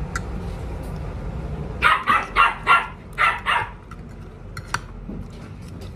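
A dog barks five times in quick succession, about two seconds in, with light clinks of a spoon and fork against a plate around it.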